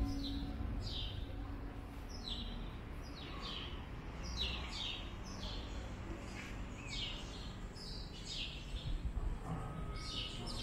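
Birds chirping repeatedly, short high calls that each fall in pitch, about one or two a second, over a steady low background rumble.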